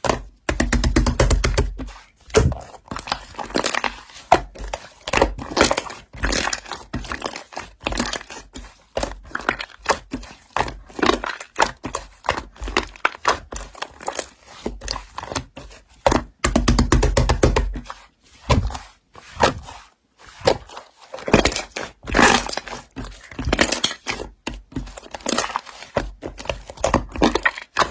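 Slime being pressed and squeezed by hand, giving a dense run of crackling clicks and pops.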